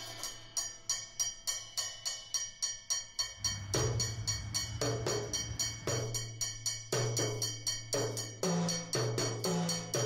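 Upbeat background music: a quick, even beat of sharp clicking percussion, about four ticks a second, joined by a bass line about three and a half seconds in.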